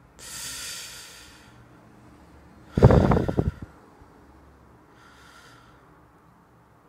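A man breathing as he wakes in bed: a drawn breath at the start, a louder, rough breath about three seconds in, then a fainter breath near the end.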